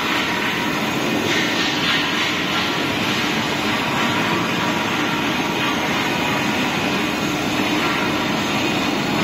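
ERW steel tube mill running: a steady, loud mix of machinery noise from the mill's roller stands and drives, with coolant water spraying at the weld area, as welded pipe feeds out along the run-out roller table.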